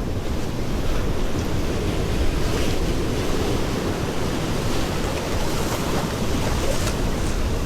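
Ocean surf washing steadily over a coastal rock shelf, with wind buffeting the microphone.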